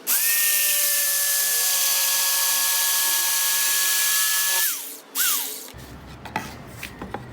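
Hoyoma 650 W corded jigsaw running at a steady speed while cutting a thin piece of solid wood, then stopping suddenly about four and a half seconds in. A short second burst of the motor follows about a second later and winds down, then a few light clicks.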